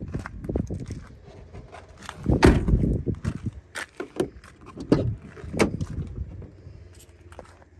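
Doors of a 2004 Ford F-250 Super Duty crew cab: a rear door pushed shut with a heavy thud about two seconds in, then a run of sharp clicks and knocks from a door handle and latch as the front door is opened.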